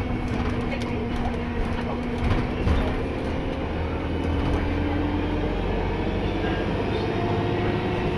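Alexander Dennis Enviro 200 MMC bus running, heard on board: a steady engine drone and rumble, with a faint high turbo whistle that rises and then falls in the second half, and a couple of small knocks.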